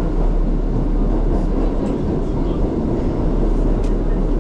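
Steady rumble of a New York City subway 1 train car running through the tunnel, heard from inside the car: wheels on the rails and the car's running gear.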